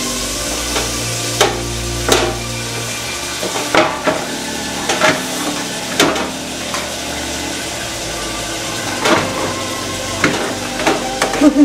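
Kitchen clatter: scattered knocks and clinks of utensils and pans, a few of them ringing briefly, over a steady background hiss.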